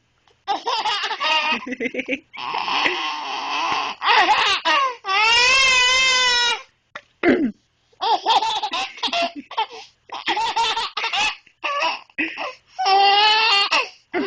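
A baby laughing in a string of high-pitched bursts, some long and squealing, in response to an adult woman clearing her throat.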